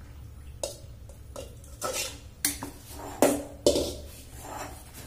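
Steel spoon clinking and scraping against an aluminium pot and a steel mixing bowl while emptying liquid into flour and stirring the batter. About six sharp clinks, the loudest two a little past three seconds in.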